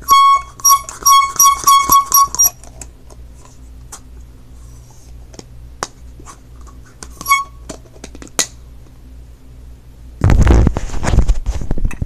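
Handheld canned air horn giving a quick, uneven series of short blasts in the first two and a half seconds, and one more brief blast about seven seconds in. Near the end there is a loud stretch of rumbling, rustling noise.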